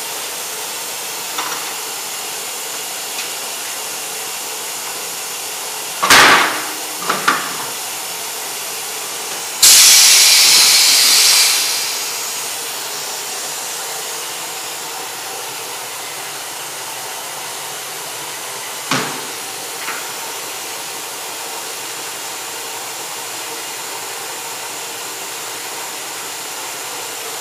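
Tire changing machine breaking a tire's bead: a sharp clank about six seconds in, then a loud burst of compressed air hissing out about ten seconds in that tails off over two seconds, over a steady background hiss.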